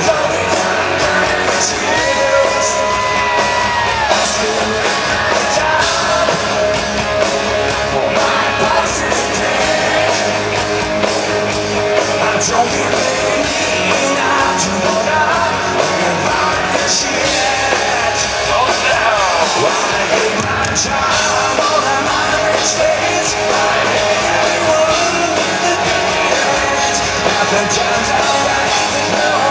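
Live rock band playing loud through a concert PA, heard from the crowd: electric guitars, drums and a lead singer's vocals.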